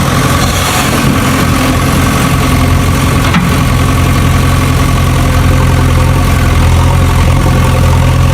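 Tractor engine idling steadily, a low even drone.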